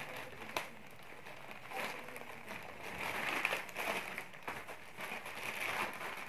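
Plastic courier mailer bag crinkling and rustling as it is cut with scissors and pulled open, with a few short sharp snips.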